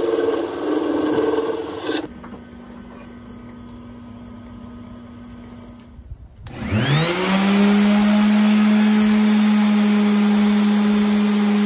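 For about the first two seconds a wood lathe runs with a hand on the spinning cup. About halfway through, an orbital sander clamped upside down starts up. Its whine rises in pitch over about a second, then it runs steadily with the turquoise-inlaid oak cup pressed against its sanding pad to level the stone with the wood.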